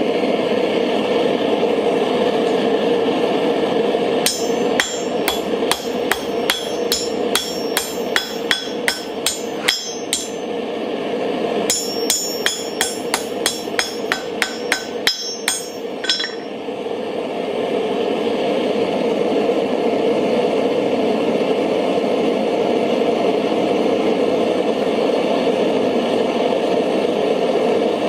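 Hand hammer striking hot steel on an anvil in two runs of blows, about two to three a second, the anvil ringing after each strike. Under it, the steady roar of a small Mr. Volcano Hero propane forge burner.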